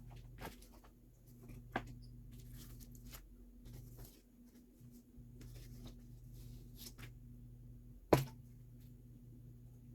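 Hands handling packaging during an unboxing: light rustling and taps, with a small click about two seconds in and a sharp click or knock about eight seconds in, over a steady low hum.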